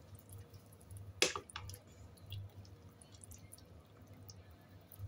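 A pot of herbal soup simmering, with scattered small pops and bubbling over a low steady hum. A sharp click sounds about a second in, with a lighter one just after.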